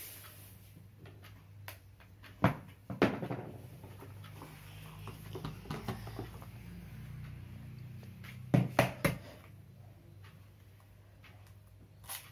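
Handling noises of kitchen things on a table: a few sharp knocks and clatters, two groups of them about six seconds apart, over a low steady hum.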